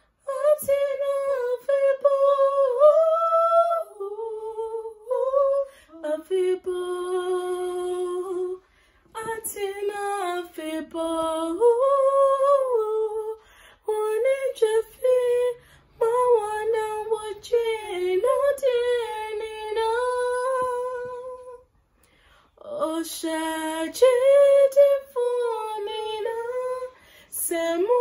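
A young girl singing solo and unaccompanied, with held and sliding notes. She breaks off briefly about a third of the way in and again about three-quarters of the way through.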